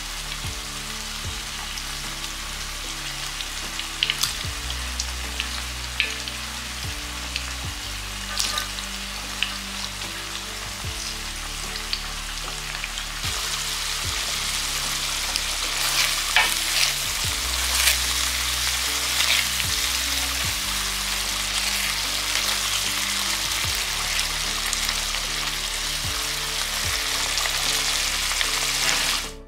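Hot oil sizzling as chopped plantain fries in a pan, with a wooden spatula clicking against the pan now and then. About halfway through the sizzle grows brighter, as a pan of tomato, pepper and onion sauce frying while it is stirred.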